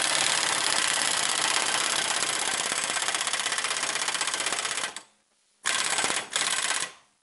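Impact wrench hammering on a puller's forcing screw to draw a stuck flywheel off the crankshaft taper. It runs in a long burst of about five seconds, pauses briefly, then gives a second burst of just over a second.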